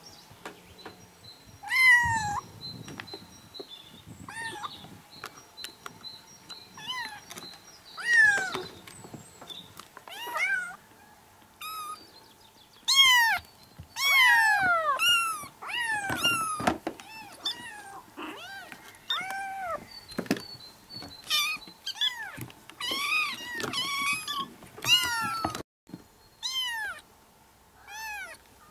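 Several young kittens meowing over and over, high thin calls that rise and fall in pitch, often overlapping one another.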